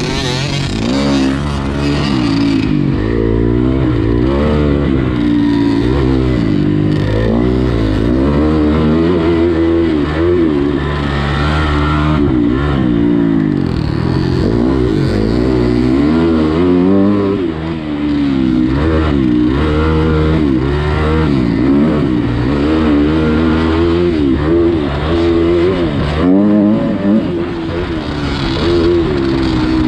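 Motocross bike engine being ridden hard, its pitch climbing and dropping again and again as the throttle opens and shuts through the gears.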